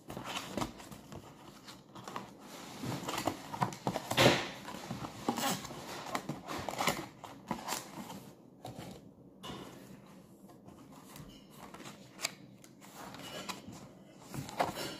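Cardboard box blanks being handled and folded by hand: rustling, creasing and light slaps of the board against the counter, in irregular spurts, loudest about four seconds in.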